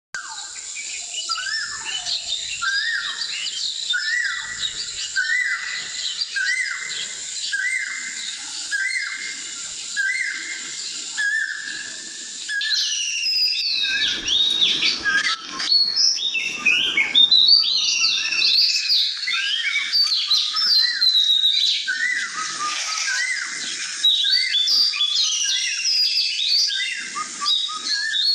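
Birds chirping: a short rising call repeated at an even pace, a little more than once a second, then from about halfway a busier mix of quick twittering chirps and sweeping whistles.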